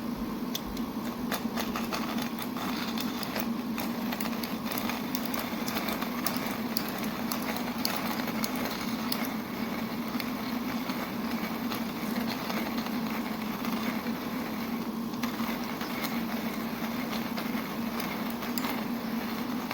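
Hand-cranked manual coffee grinder with ceramic conical burrs grinding coffee beans: a steady low grinding hum, with many sharp crackles from the beans being crushed between the burrs.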